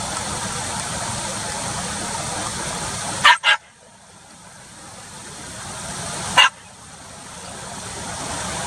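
Black Shiba Inu barking from a car's back seat: two quick sharp barks a little over three seconds in, then a single bark about three seconds later. It is the dog's habit of insistent demand-barking, which treats no longer quiet. A steady noise runs underneath.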